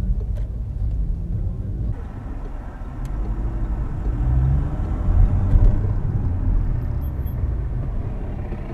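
A car's engine and road rumble heard from inside the cabin through a dash cam, the car creeping along at low speed. The sound changes abruptly about two seconds in, and it grows a little louder around four to five seconds in as the car picks up speed.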